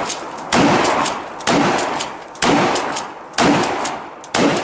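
Gunshots fired in a steady string: five loud shots about one a second, each followed by a short ringing echo.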